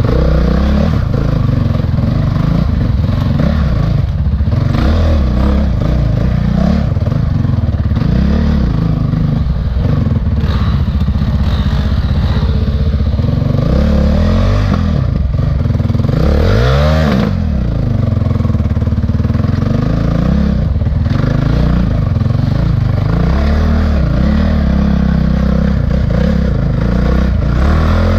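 Honda CRF450X dirt bike's single-cylinder four-stroke engine, heard from on the bike, revving up and down over and over as it climbs a rough forest trail, with one sharp rev-up and drop about two-thirds of the way through.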